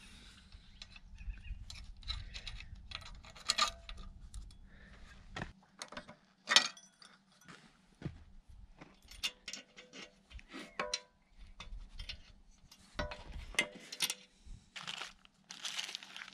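Small metal parts clinking and tapping as they are handled, likely hydraulic fittings: irregular light metallic clicks, some ringing briefly.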